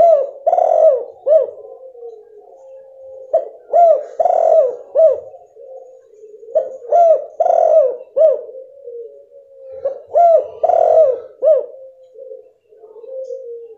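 Female spotted dove cooing in four phrases about three seconds apart, each a run of short rising-and-falling coos, with a steady low note between phrases. It is used as a lure call to set a silent male dove cooing.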